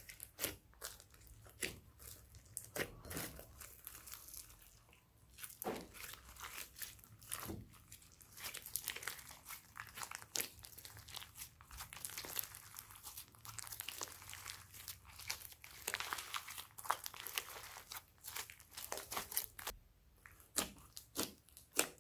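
Hands squeezing, folding and stretching slime mixed with small foam beads. It gives a dense run of wet crackles, pops and sticky tearing sounds, with a short lull near the end.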